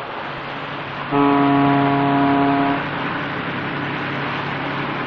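A ship's horn sounds one held blast of about a second and a half, starting about a second in, over a steady rush of churning water.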